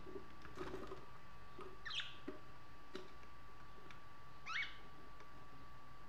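Budgerigar giving two short upward-sweeping chirps, about two seconds in and again near the end, with a few soft clicks and taps between them. A faint steady high tone runs underneath.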